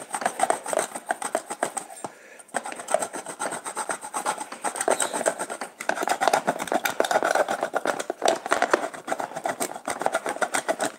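A block of parmesan scraped back and forth over a handheld grater in quick rasping strokes, with short breaks about two and six seconds in.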